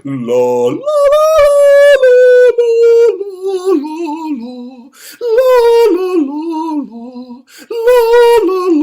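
A solo voice singing a wordless 'la la' tune with no accompaniment, in several short phrases that mostly step down in pitch. The melody is built from pitches picked out of the drone of leaf blowers and lawnmowers.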